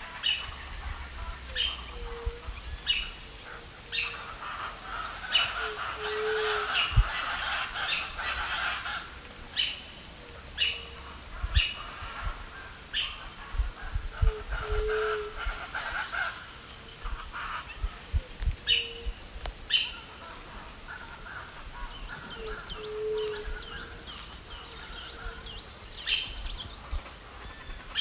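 Wild birds calling: sharp high chirps repeated about once a second, short low notes every few seconds, and a rapid high twittering series near the end. A stretch of rushing noise runs under the calls a few seconds in.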